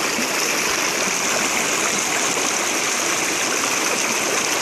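River water rushing steadily over rocks and shallows, an even, unbroken noise with no change in level.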